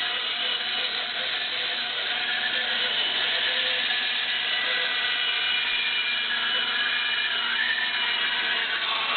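A woodworking power tool running steadily as it cuts a wooden ring, with a few steady pitched tones in its sound.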